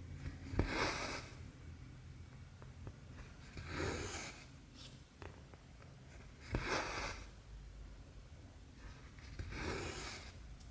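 Cotton embroidery thread being drawn through cross-stitch fabric in a steady rhythm: four soft swishes, one about every three seconds. Faint ticks of the needle passing through the cloth fall in between.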